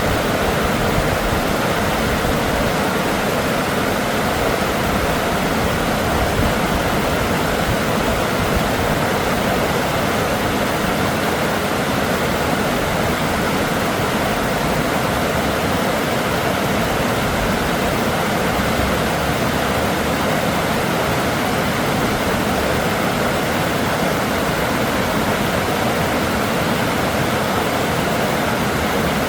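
River water rushing steadily, a constant even rush that does not change.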